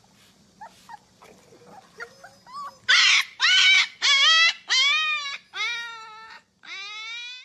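Husky puppy crying out in a run of about six loud, pitched howling yowls, each rising then falling in pitch, after a few faint short yips in the first couple of seconds.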